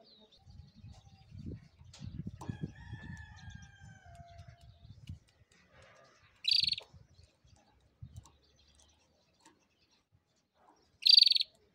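Caged canary giving two short, loud chirps about four and a half seconds apart. In the first few seconds, before them, there is a low rumble and a fainter long call that falls slowly in pitch.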